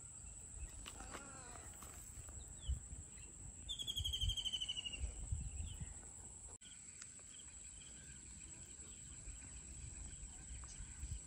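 Outdoor waterside ambience with small birds chirping and, about four seconds in, a bird's rapid trill of quick repeated high notes that fall slightly in pitch. A thin, steady high whine sits underneath, with some low rumble.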